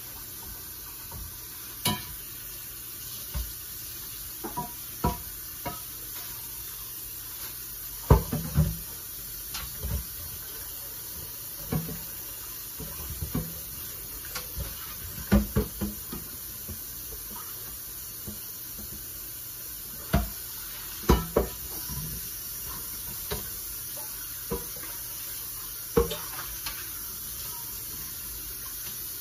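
Pots and dishes being handled in a kitchen sink: scattered clanks and knocks every second or two, a few louder ones, over a steady background hiss.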